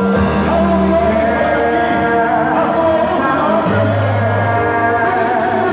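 Loud music with singing over long held bass notes, the performance music of a festa junina quadrilha group.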